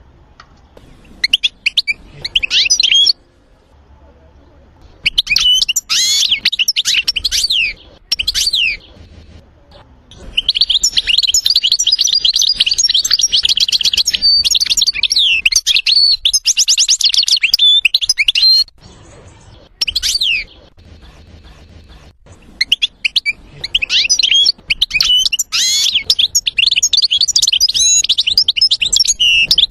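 European goldfinch singing: phrases of fast, varied, high twittering and trills with short pauses between them, the longest running about eight seconds.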